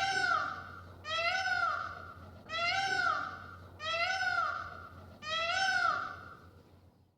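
An animal calling five times, each call about a second long, rising and then falling in pitch, at an even spacing of about a second and a half.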